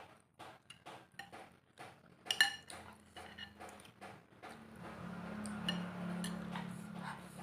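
Cutlery tapping and scraping in a bowl of noodle soup: a string of light clicks, with one louder ringing clink about two and a half seconds in. From about halfway a steadier rushing sound with a low hum takes over.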